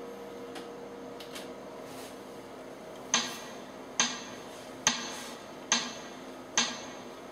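Six evenly spaced metronome-style clicks, a little under one a second, starting about three seconds in: a count-in just before a keyboard backing track starts. A faint held tone lingers underneath.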